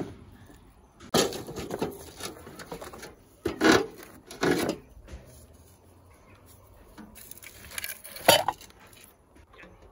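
Firewood sticks clattering and scraping against a rusty metal bucket stove as they are loaded into it, in several separate bursts, the sharpest knock near the end.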